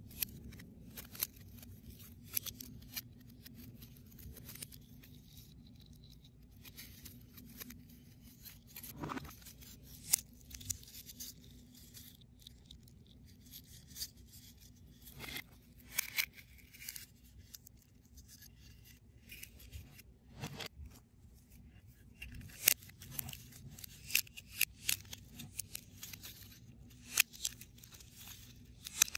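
CubicFun foam-board 3D puzzle pieces clicking, scraping and rustling as tabs are pushed into slots and the parts are handled. The clicks are irregular and come more often near the end, over a faint steady hum.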